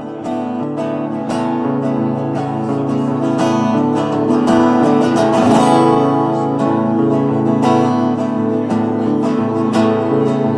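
Acoustic guitar strumming chords in a live instrumental intro, growing louder over the first few seconds.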